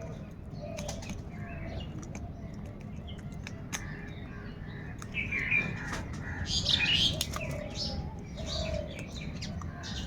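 Crows calling, with several harsh caws, the loudest a little past halfway, over a steady low rumble and scattered short clicks.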